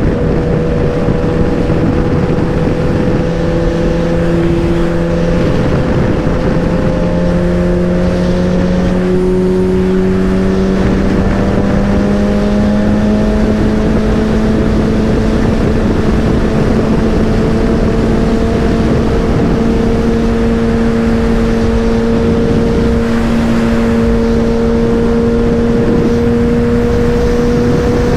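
Motorcycle engine running at highway speed under a heavy low wind rush, its note rising slowly and steadily as the bike gains speed.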